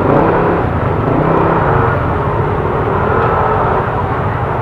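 Motorcycle engine running steadily, a low hum whose pitch shifts slightly.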